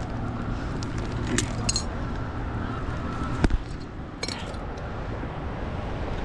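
A few light clinks and clicks from a spinning rod and reel being handled and picked up off the rock. The sharpest knock comes about three and a half seconds in. Under it is the steady rumble of water pouring through the dam spillway.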